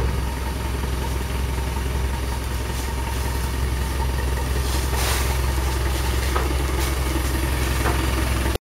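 Engine of a heavy wheeled machine idling steadily beside the crate it is handling, with a few light knocks and clicks over it. The sound cuts off suddenly near the end.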